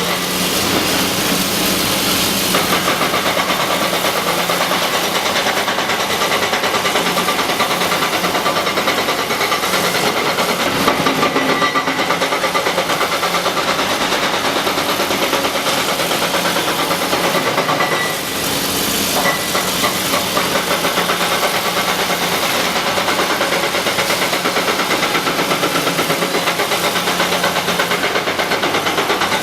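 Diesel engine of a Caterpillar 321C LCR excavator running steadily at working speed, loud, with a brief dip in level about eighteen seconds in.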